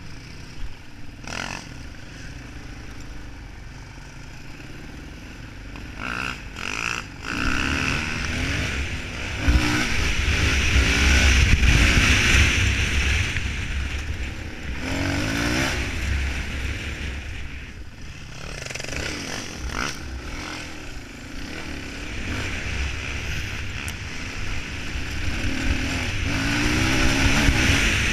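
Suzuki DR-Z400E single-cylinder four-stroke dirt bike engine under the rider, revving up and shifting as it accelerates several times, loudest from about 8 to 14 seconds in.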